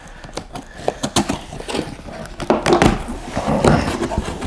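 Cardboard shipping box being pulled open by hand: a busy run of scrapes, clicks and rustles of the cardboard, heaviest in the second half.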